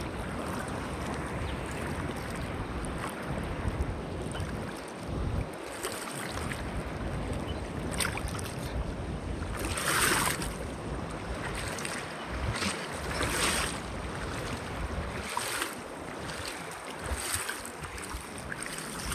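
Rushing water of a waterfall, a steady hiss, with wind buffeting the microphone in low rumbles that come and go. A few louder bursts of hiss rise over it midway.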